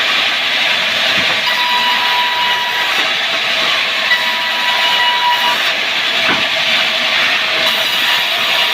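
A wood saw cutting timber: a loud, steady, dense noise with a faint thin whine that comes and goes.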